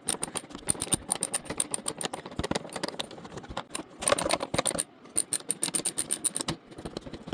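Quick irregular plastic clicks and rattles as a snowmobile's plastic cover is wiggled and pulled loose, with a denser, scraping stretch about four seconds in.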